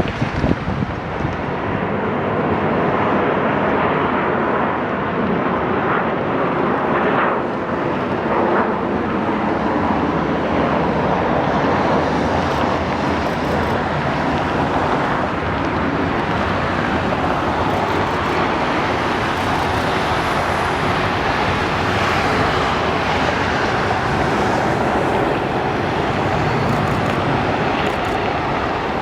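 Steady, continuous vehicle noise: an even, unbroken rumble and rush that holds about the same loudness throughout.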